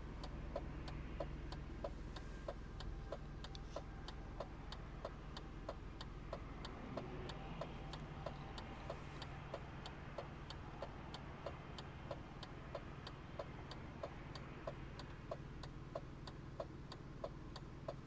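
A car's turn-signal indicator clicking steadily, about one tick every 0.6 s, over the low hum of the idling engine, heard inside the car's cabin.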